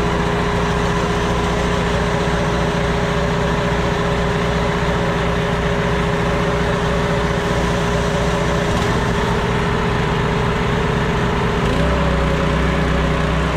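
Small Honda gasoline engine on a portable pressure pump running steadily. About twelve seconds in its note shifts as it takes up load, when the spray gun opens and water starts jetting.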